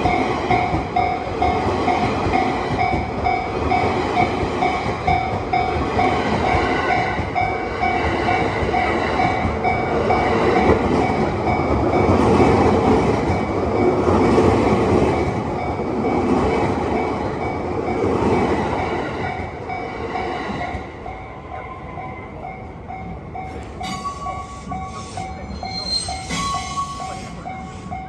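Level-crossing warning bell ringing in an even, repeating ding-ding throughout, while a train runs past over the crossing. The train is loudest about halfway through and dies away after about twenty seconds. A few sharp clicks come near the end.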